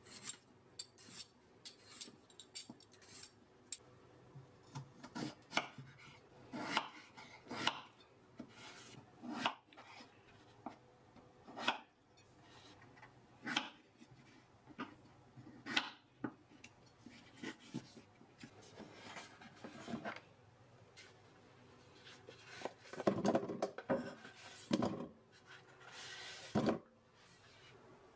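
Raw potatoes being peeled with a metal swivel peeler and cut into chunks with a kitchen knife on a wooden cutting board: irregular scrapes of the blade on the potato and sharp knocks of the knife on the board, coming thickest near the end.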